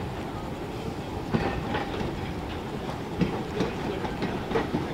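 Narrow-gauge steam locomotive and its coaches running slowly, a steady rumble with irregular sharp clicks and knocks.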